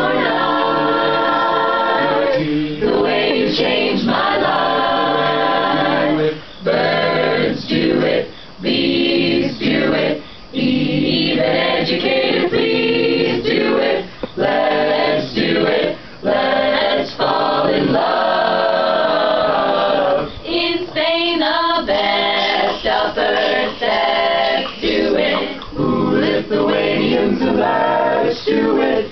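A cappella group of mixed men's and women's voices singing a song together in harmony, in sustained chords broken by short pauses between phrases.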